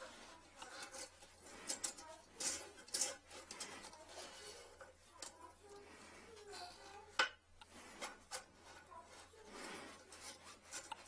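A metal retrieval wire and an inspection-camera cable scraping and rubbing against the porcelain inside a toilet trap while working to hook a lodged toothbrush, with irregular scrapes and small clicks and one sharp click about seven seconds in.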